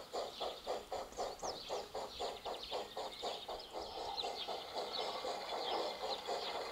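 Steam locomotive chuffing at about five beats a second, the beats running closer together and blurring in the second half. Birds chirp over it.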